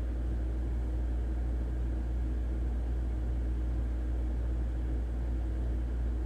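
Caterpillar C9 inline-six diesel engine idling steadily with a low, even rumble, test-run after a new crankcase breather assembly was fitted.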